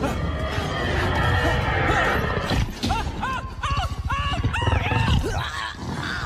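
Film soundtrack mix: music over a dense low rumble. From about three seconds in comes a run of short high cries, each rising and then falling in pitch.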